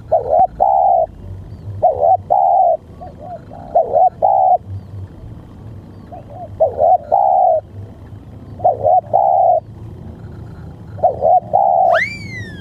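Spotted dove cooing: six repeated phrases, each made of a couple of short notes and a longer drawn-out coo, about every two seconds. Near the end, a loud high whistle-like note sweeps up and falls away.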